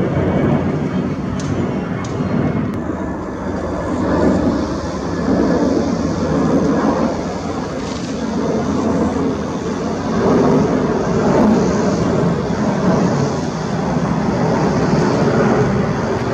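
Jet engines of airliners climbing out after takeoff: a steady, loud rumble with a hiss above it. The Airbus A320-family jet gives way to the Airbus A330-300, which is at climb thrust.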